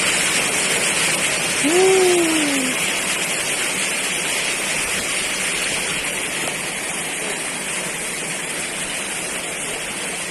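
Heavy storm rain pouring down steadily, easing slightly toward the end. About two seconds in, one short call rises and then falls in pitch over it.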